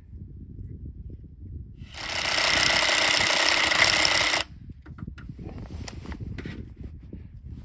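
A power tool runs loudly for about two and a half seconds, starting about two seconds in and stopping abruptly, over a low rumble.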